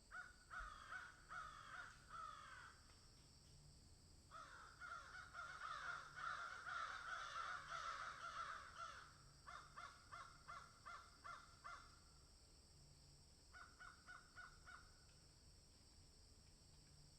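Several crows cawing in runs of quick repeated caws, with a stretch of many overlapping calls from about four to nine seconds in.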